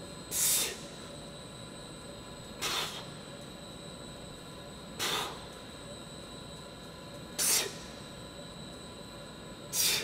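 A man's forceful breaths out, hissed through the mouth, five times about every two and a half seconds: exertion breathing, one breath with each pull of a heavy single-arm dumbbell row.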